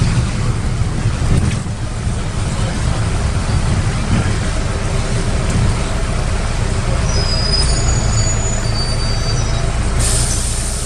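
Karosa B961 articulated city bus heard from inside at the front: its diesel engine and drivetrain running under way with a steady low drone. A few short high squeaks come in later, and a rush of hiss starts near the end.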